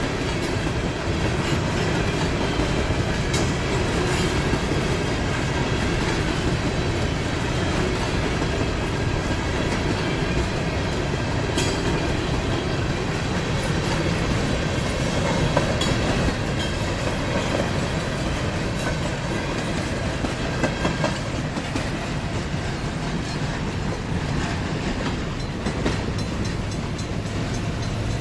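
Norfolk Southern freight train of covered hopper cars rolling past at a grade crossing: a steady rumble of steel wheels on rail with clickety-clack over the rail joints. The last car clears near the end.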